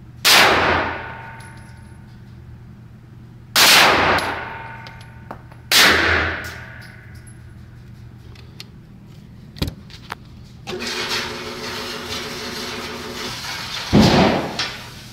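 Three shots from a Walther PPQ M2 5-inch 9mm pistol fired one-handed, the second about three seconds after the first and the third two seconds later, each echoing long off the concrete of an indoor range. Later a target carrier runs with a steady mechanical hum for a few seconds, and a loud bang comes near the end.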